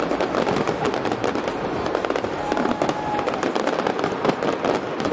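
Aerial fireworks display: a dense, unbroken barrage of sharp bangs and crackling shell bursts, several a second.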